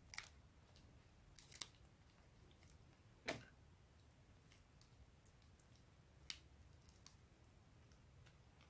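Near silence broken by a few faint, sharp sticky clicks as pink glue slime is pulled and peeled off the fingers.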